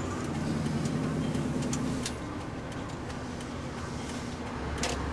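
Scania V8 truck engine running while driving, heard from inside the cab. The engine note eases a little about two seconds in and grows stronger near the end, with a few light clicks.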